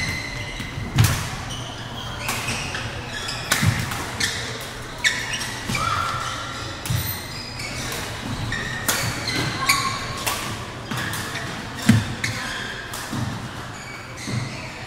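Badminton doubles rally in a large, echoing sports hall: sharp racket strikes on the shuttlecock, heavy footfalls thumping on the court and short sneaker squeaks, over background clicks from neighbouring courts and crowd chatter.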